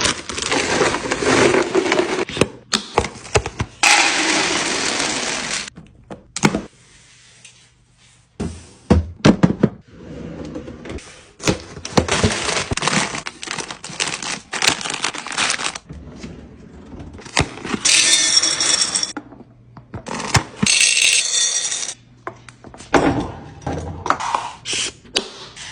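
Snack packaging being handled during a restock: plastic wrappers and bags rustling and crinkling, with items and containers set down in a string of clicks, knocks and thunks.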